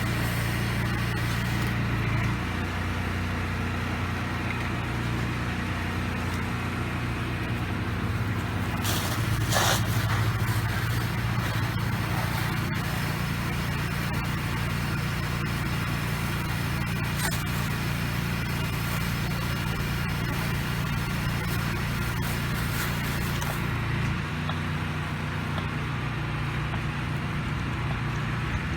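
Gas engine of a pressure washer running steadily under load, with the hiss of water spraying from the wand. The engine note shifts about two seconds in, and near the end the spray hiss stops as the engine note changes again.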